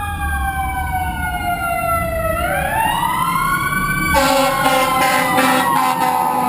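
Electronic background music: a many-toned synth sweep glides slowly down and then back up, sounding like a siren. From about four seconds in it gives way to held chords over a beat, and it cuts off abruptly at the end.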